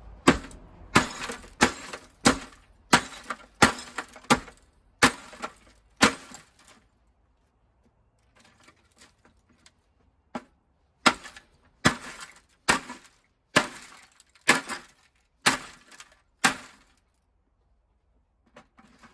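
Repeated sharp blows breaking up a ViewSonic E70F CRT monitor, with glass and brittle plastic cracking. About a dozen strikes come at roughly two a second, then a pause with faint rattling, then about eight more strikes.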